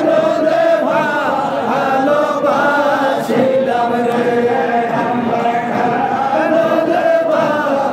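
Many men chanting a Sufi zikr together, singing a Bengali devotional melody in chorus with no break.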